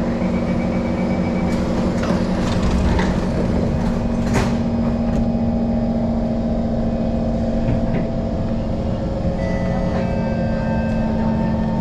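Singapore MRT train at a platform: rapid door-closing warning beeps, then the doors sliding shut with a knock about four seconds in, over the steady hum of the train's electrical equipment. Near the end, higher whining tones start up as the train begins to move off.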